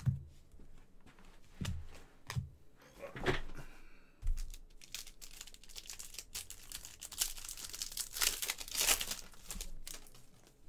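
A few soft knocks of cards being handled, then the wrapper of a baseball card pack crinkling and tearing open for several seconds.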